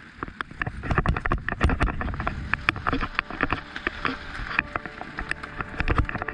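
Specialized Kenevo mountain bike descending a rocky dirt trail: tyres crunching over loose gravel and stones, with a fast run of clicks and knocks as the bike rattles over the bumps, louder from about a second in.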